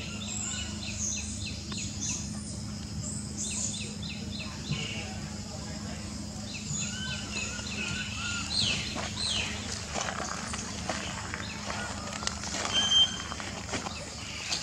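Birds chirping in short, quickly repeated high notes, with a few falling calls midway, over a steady low hum. Scattered sharp clicks come toward the end, one of them louder.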